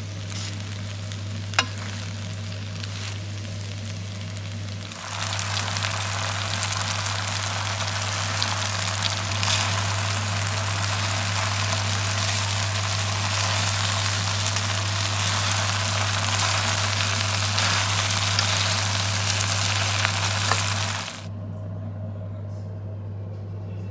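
Spaghetti with spinach, pumpkin and pine nuts sizzling in a frying pan as it is stirred, over a steady low hum. The sizzle grows louder about five seconds in and drops back near the end, with a sharp click just after the start.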